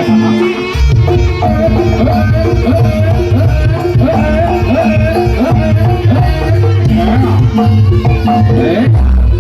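Javanese barongan accompaniment music: kendang hand drums playing a dense rhythm under a wavering, bending melody line and steady sustained notes. The low drum strokes come in about a second in.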